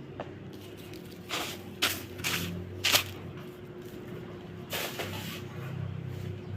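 A person sneezing from a dust allergy: two sharp sneezes about a second apart, each after a short breath in, then a longer breathy burst a couple of seconds later.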